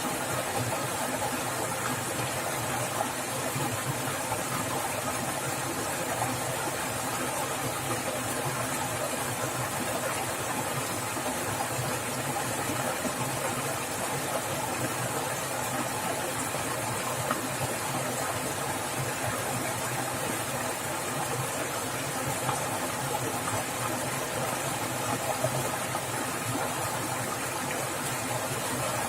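Rushing water in a forest stream, splashing steadily with an even, unbroken noise.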